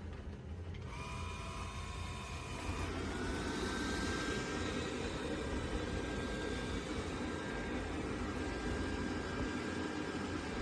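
MOVA S10 Plus robot vacuum's suction motor starting up: thin whining tones come in about a second in, the whine glides up in pitch and the rushing airflow grows louder until about three seconds in, then the motor runs steadily.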